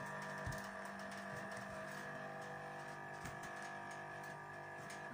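Refrigerator running with a steady, high buzz from its compressor area, a few light knocks as the cabinet is rocked. The buzz comes from the loose defrost-water evaporation tray on top of the compressor vibrating against it.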